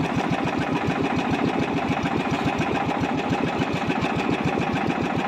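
Small outrigger fishing boat's engine running steadily, a fast, even chugging as the boat moves along.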